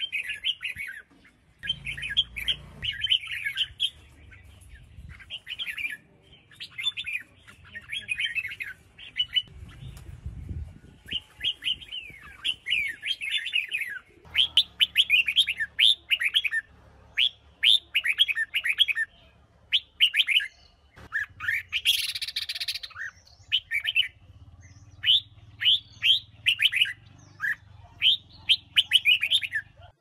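Female red-whiskered bulbul singing: short bursts of quick, sliding chirpy notes repeated again and again with brief pauses between phrases. This kind of song is played to rouse male bulbuls into singing.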